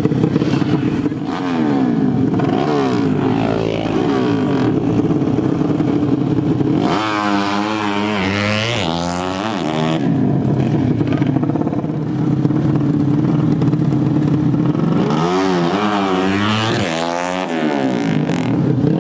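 Tuned 150 cc drag-bike engines running loud at a fast idle. Twice, around the middle and again near the end, the throttle is blipped in a run of rapid revs that rise and fall in quick succession.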